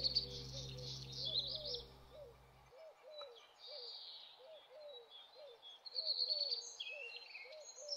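Birdsong of high chirps and trills over a low call repeated a couple of times a second. A held low music chord underneath cuts off abruptly a little under three seconds in.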